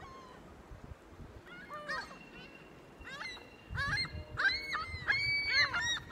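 A flock of gulls calling: many overlapping arched, yelping cries that build up and get louder about four seconds in. They are calling in alarm at a person standing close to them.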